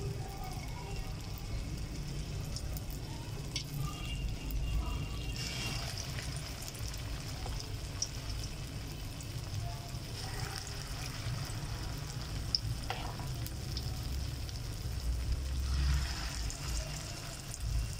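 Moong-masoor dal dumplings (mangochiyan) deep-frying in hot oil in an iron kadai, a steady sizzle, with a metal spoon stirring them near the end.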